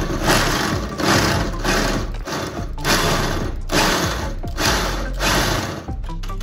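Power drill running an 8.5 mm bit into a broken 10 mm bolt stud in a car frame, drilling it out so the hole can be re-tapped. The drill runs in about six bursts with short pauses between them.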